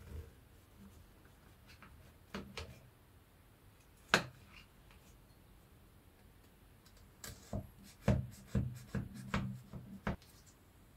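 Large knife cutting through a baked sponge cake in a glass baking dish: soft scrapes and dull knocks as the blade presses and saws down, with one sharp click about four seconds in and a cluster of knocks from about seven seconds on.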